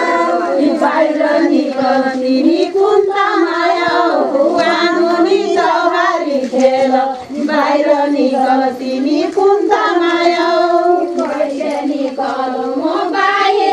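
A group of women singing a Far-western Nepali folk song together, the melody rising and falling in repeated phrases.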